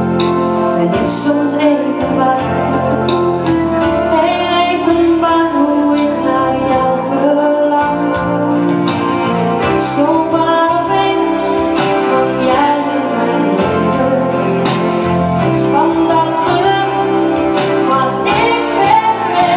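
A woman singing a Dutch-language pop song live into a microphone, with acoustic band accompaniment; some held notes waver with vibrato.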